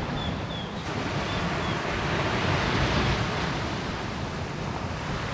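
Sea surf washing onto the beach, a steady rushing that swells and eases, with a few faint high chirps in the first two seconds.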